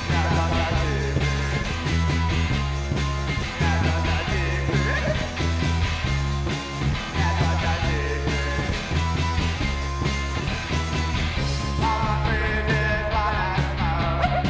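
A rock and roll band playing live: electric guitar, electric bass and a drum kit in a steady beat, with a singer's vocals.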